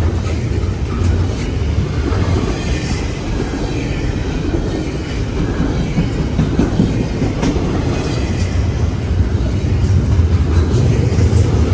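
Double-stack intermodal well cars rolling past close by: a steady rumble of steel wheels on rail with clickety-clack over the rail joints.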